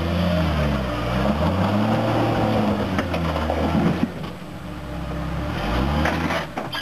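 Jeep CJ-8 Scrambler's engine revving up and down under load as it crawls over a rock ledge, with a few sharp knocks.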